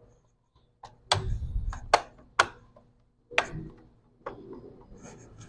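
About half a dozen sharp plastic clicks and knocks as hands handle and press on the underside of an HP Pavilion G4 laptop being put back together, the first with a dull thump.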